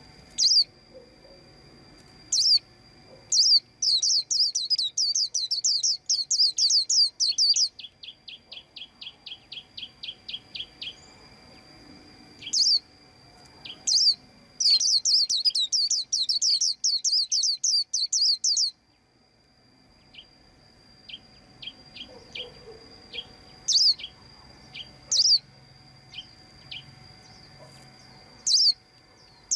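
White-eye chirping: single sharp high chirps, and twice a long, fast twittering trill lasting about four seconds, the first followed by a run of quicker, quieter ticks. A thin steady high tone sounds underneath.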